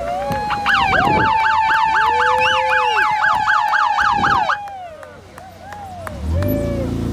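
Electronic sirens: a held wailing tone with a fast yelp warbling over it, about five warbles a second, which stops about four and a half seconds in. Near the end a low, steady rumble takes over.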